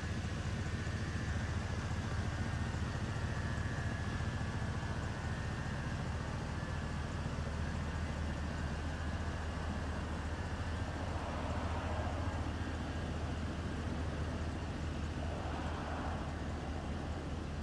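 2002 GMC Sierra 3500 box truck's 6.0-litre gasoline V8 idling steadily, a constant low hum.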